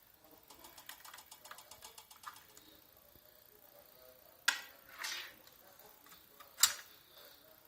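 A quick run of light ticks, about eight a second for about two seconds, then three sharp clicks spread over the next two seconds, the last one the loudest.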